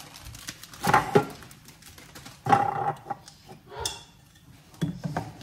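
Kitchen handling sounds: two loud knocks, about a second in and again midway, each with a short metallic ring, then lighter clatter and rustling as packets of maize flour are handled beside a stainless steel pot.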